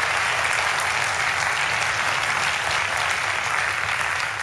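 Large auditorium audience applauding, a steady dense clapping at even strength.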